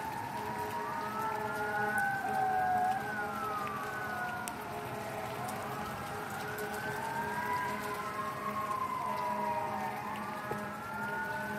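Several emergency-vehicle sirens wailing out of step with one another, each slowly rising and falling in pitch, over a steady hiss of rain.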